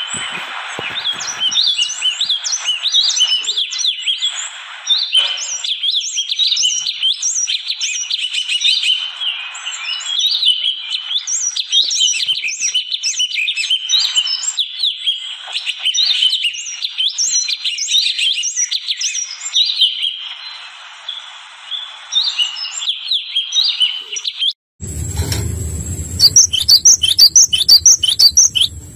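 Small songbirds chirping and calling in a dense, rapid chorus of short high notes. About 25 s in, the sound cuts abruptly to faster, higher-pitched chirps over a low hum.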